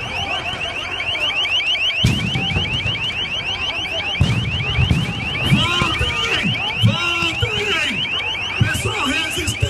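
An electronic alarm or siren sounding a rapid, evenly repeating rising chirp without a break, over crowd voices shouting and calling.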